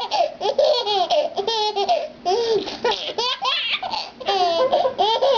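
A baby laughing hard: a string of high-pitched laughs with short pauses between them.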